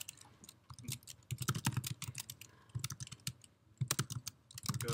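Typing on a computer keyboard: short runs of quick keystrokes separated by brief pauses.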